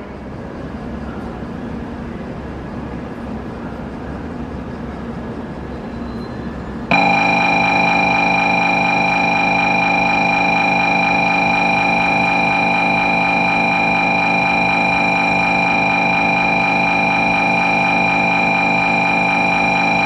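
Steady background hum, then about seven seconds in a louder electronic tone with several pitches at once starts abruptly and holds unchanged.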